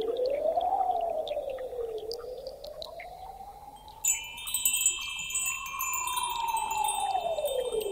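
Ambient electronic music: a smooth tone glides slowly up and down in pitch, and about four seconds in a high layer of chime-like tinkling comes in suddenly over it.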